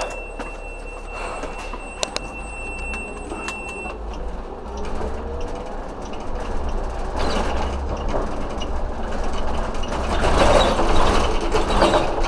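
Large vehicle's engine running with a low rumble and road noise, a short rising whine a few seconds in, and a louder rush of noise near the end. A thin steady high tone sounds for the first few seconds.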